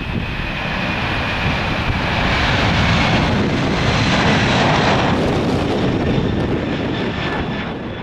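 Boeing 747's four jet engines at take-off thrust as it lifts off and climbs away: a steady jet roar with a high whine, swelling over the first few seconds and easing near the end.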